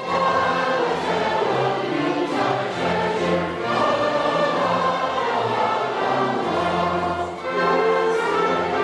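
Choir singing with an orchestra: held, full chords of voices and instruments.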